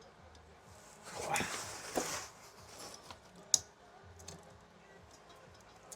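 Handling noise from garage door opener parts being fitted: a scraping rustle about a second in with a knock inside it, then one sharp click a little later.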